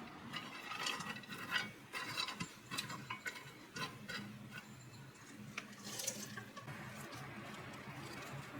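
A run of small clicks, taps and clatter, the sound of things being handled in a kitchen, busiest in the first four seconds and thinning out after, over a faint steady low hum.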